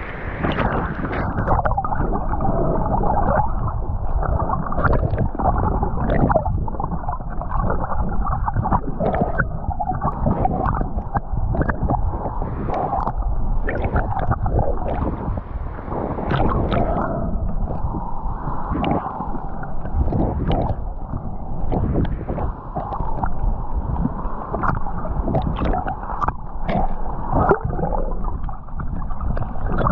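Muffled water sloshing and gurgling with frequent short knocks and bumps, the sound cut off above the low and middle range, as heard by a camera at or under the water.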